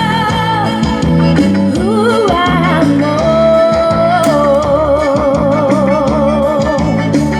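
Forró gospel music: a long-held melody line with vibrato over plucked guitar, a stepping bass line and drums.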